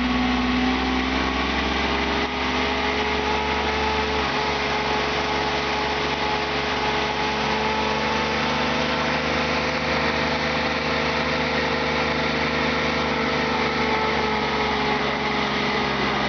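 Mini skid steer loader's engine running steadily, its pitch wavering slightly.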